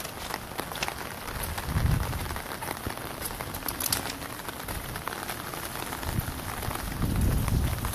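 Heavy rain falling on an umbrella held over the microphone, a steady hiss dotted with sharp ticks of single drops striking it. Low rumbles come through about two seconds in and again near the end.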